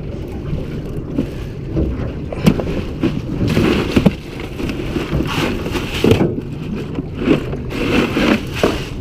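Fishing boat on the water: a steady low rumble of its motor, with irregular surges of noise over it.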